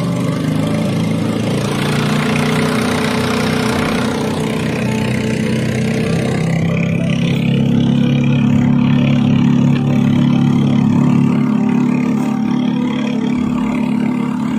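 Small boat engine running steadily under way, with water splashing and rushing against the wooden hull for the first several seconds.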